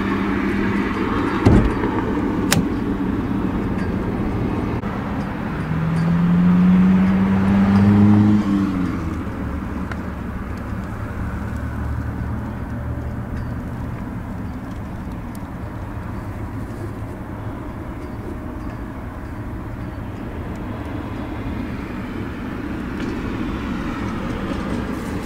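A Kia Rio's four-cylinder engine idling with a steady low hum. There is a single thump about a second and a half in, and a louder hum rises in pitch for a few seconds around six to eight seconds in.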